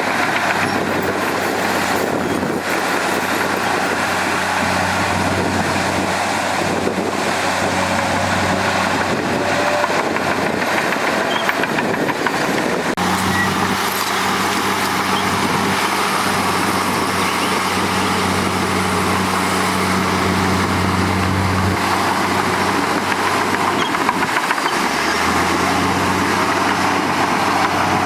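Heavy diesel engines of earth-moving machinery, a bulldozer and dump trucks, running steadily under load. The engine hum steps up abruptly about halfway through and changes pitch again near the end.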